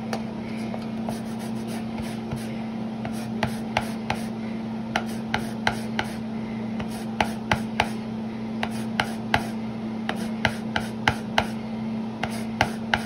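Lime peel being grated on a Microplane rasp zester: short, uneven scraping strokes of the fruit across the blades, coming more often after the first few seconds.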